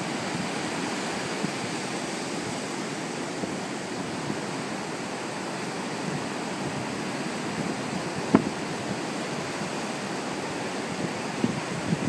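Ocean surf breaking and washing up a sandy beach: a steady rush of waves, with one brief knock about eight seconds in.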